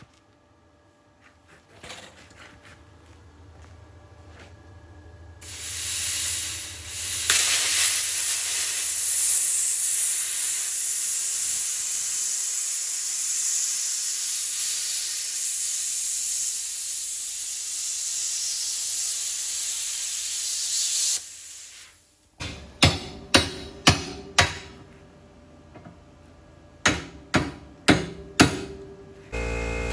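Plasma cutter cutting through the side-cutter bolts on an excavator bucket: a loud, steady hiss of arc and air that starts about five seconds in and cuts off abruptly about two-thirds of the way through. Then about nine sharp knocks follow in two quick runs.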